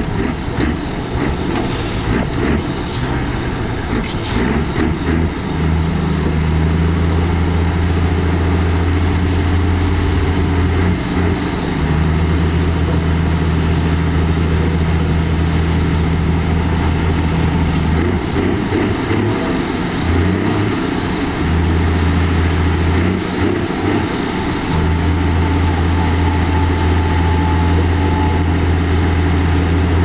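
Heavy diesel engine of earthmoving machinery running at a steady low pitch, dropping out briefly a few times. Two short, sharp hisses or knocks come in the first few seconds.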